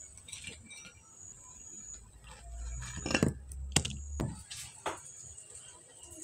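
A few sharp clinks and knocks, as of kitchen utensils or dishes being handled, clustered in the middle, with a low rumble under the first few. A steady high-pitched whine runs beneath throughout.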